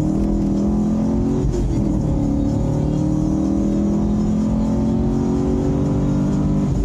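Gen6 Chevrolet Camaro SS's 6.2-litre V8 pulling hard, heard from inside the car: a brief break about a second and a half in, then the engine note climbs steadily in pitch until it drops away near the end.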